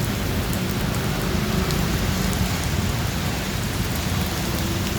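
Steady rushing water noise, like heavy rain or flooding water, an even hiss with a low rumble underneath.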